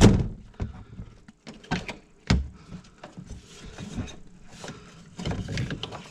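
Scattered clicks and knocks of hands and tools working in an engine bay while a serpentine belt is taken off, the sharpest knock about two seconds in.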